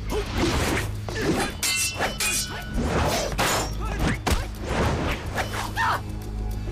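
Fight-scene sound effects: a rapid series of whooshes and metal weapon clashes of blade and spear, several ringing briefly after the strike. Music runs underneath.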